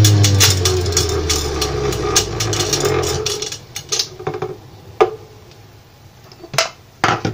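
Electric centrifugal juicer's motor spinning down after being switched off, its hum falling in pitch over about three seconds, with clicking and rattling from the spinning basket. After that come a few light plastic knocks.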